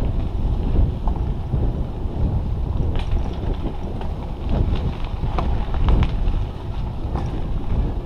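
Wind buffeting the microphone over a low rumble of bicycle tyres on a dirt path, with scattered short clicks and rattles from the bike as it rides over bumps.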